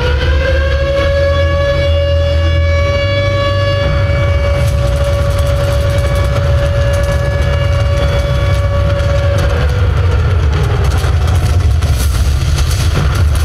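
Soundtrack of an air-raid siren that winds up, holds one steady wailing tone and winds down about ten seconds in, over a heavy low drone of bomber engines. Sharp cracks and bangs of gunfire and explosions come in partway through and thicken near the end.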